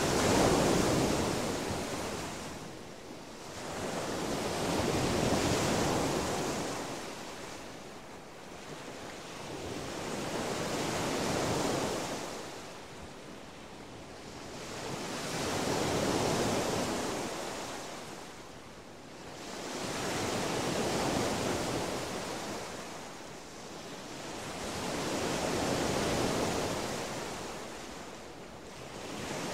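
Ocean surf: waves breaking and washing up a sandy beach, swelling and fading about every five seconds.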